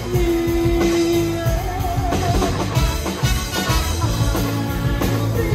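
Live band playing rock music: drum kit, electric guitars and saxophones, with long held melody notes, one of them wavering near the middle, over a steady drum beat.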